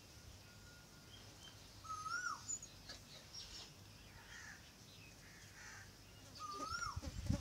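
Faint birdsong: scattered high chirps, with a clear call that rises then falls sung twice, about two seconds in and near the end.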